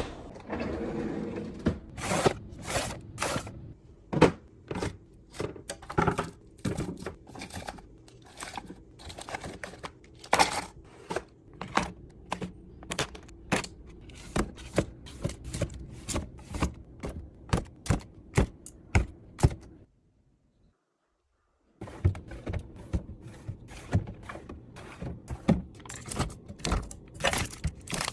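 Containers and food packages being handled and set down while restocking a fridge: an irregular string of clicks, taps and thunks, roughly one to three a second, with a break of about two seconds in silence two-thirds of the way through.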